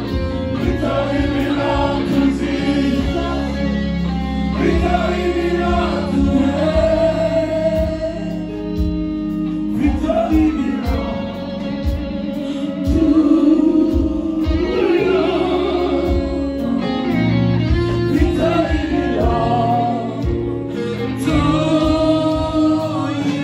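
Live gospel worship song led by a woman singing into a microphone through the PA, with other voices joining in like a choir, over band accompaniment with a steady bass line.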